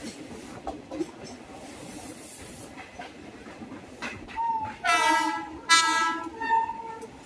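Train running with wheels clicking over rail joints, then a WAP-5 electric locomotive's shrill horn sounding in several blasts about four seconds in, the two loudest back to back.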